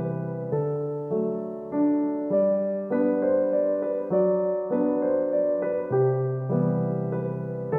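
Background piano music: a slow melody of sustained notes and chords, a new note or chord struck about every half second.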